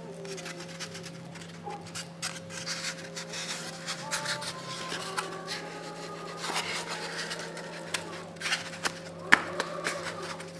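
Homemade CNC machine at work: a steady hum with short whines that change pitch in steps, under scraping and rubbing with scattered sharp clicks, one sharper click about nine seconds in.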